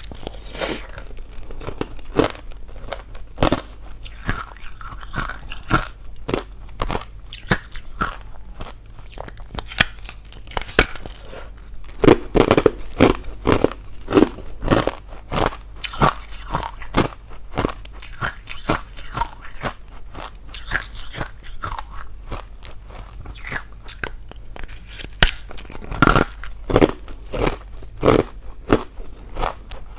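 Hollow clear ice being bitten and chewed into a close microphone: sharp cracks and crunching at an irregular pace, thickest a little before the middle and again near the end.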